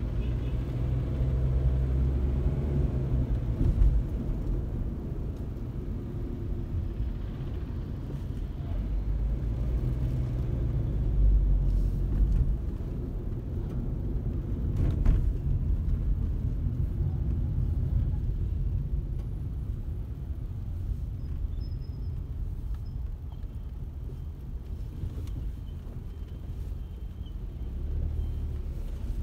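A car driving, a steady low rumble of engine and tyres on the road that swells and eases. Two brief knocks come through, about four seconds in and about fifteen seconds in.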